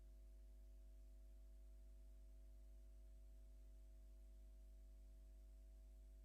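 Near silence: a faint, steady hum with a few constant tones, with no other sound.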